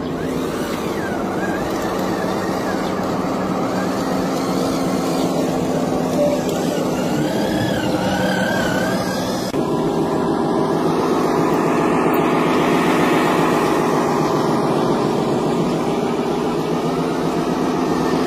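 Radio-controlled model dump truck driving: a steady engine-like drone with a wavering higher whine, changing abruptly to a louder, steadier drone about halfway through.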